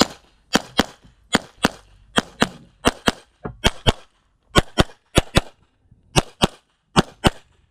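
Pistol fired rapidly outdoors: about eighteen shots, mostly in quick pairs a quarter-second apart, with short pauses between pairs as the shooter moves from target to target.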